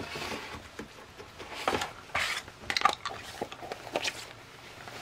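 Plastic slime jar and lid being handled on a table: a string of irregular light knocks and clicks, with some brief rubbing.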